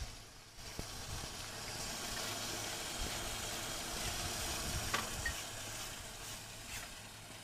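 Food sizzling in hot oil in a pan: a steady frying hiss that starts about half a second in and slowly dies down, with a couple of light clicks near the middle.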